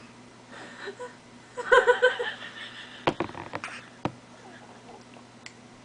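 A baby's short, choppy vocal sounds: a quick run of four or five 'ah' pulses about two seconds in, as she sputters water back out of her mouth. A few sharp, wet mouth clicks follow.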